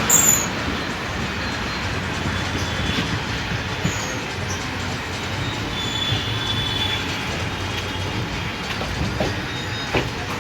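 Indian Railways ICF passenger coach running on the track, heard from on board: a steady rumble of wheels on rail. Brief high wheel squeals come near the start and again around four and six seconds in, and a couple of short knocks come near the end.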